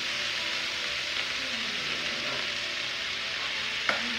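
Sisig sizzling steadily on a hot cast-iron sizzling plate as more is spooned onto it, an even hiss, with a single sharp clink of a metal spoon on the dish a little before the end.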